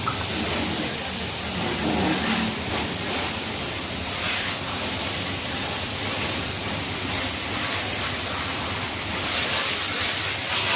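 Pressure washer running, its high-pressure water jet spraying with a steady hiss.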